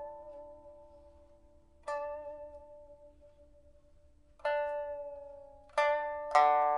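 Suanzhi (rosewood) pipa, newly fitted with a new soundboard and frets, played in a slow, sparse passage. A single plucked note sounds about two seconds in, another near four and a half seconds, then two more in quick succession near the end. Each note rings and fades away before the next.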